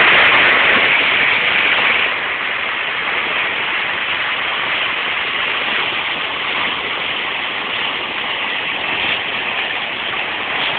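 River water rushing and churning over boulders in rapids: a steady rushing noise, a little louder in the first two seconds.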